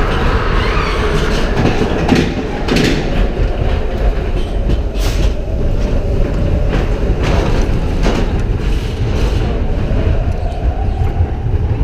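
Matterhorn Bobsleds roller-coaster sled running along its steel track: a loud, steady rumble with irregular clacks from the wheels.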